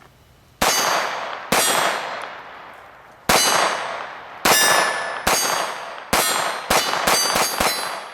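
Ten shots from a Ruger SR22 .22 LR semi-automatic pistol firing Federal ammunition. The shots come unevenly spaced at first, then quicken near the end, each with a long ringing decay.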